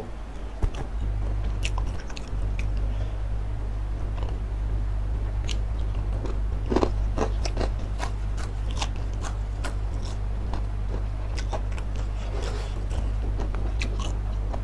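Close-miked chewing of crispy fried chicken: many sharp crunches and crackles, thickest around the middle, over a steady low hum.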